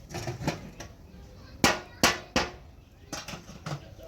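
A series of sharp knocks, the three loudest close together in the middle, with a few fainter ones before and after.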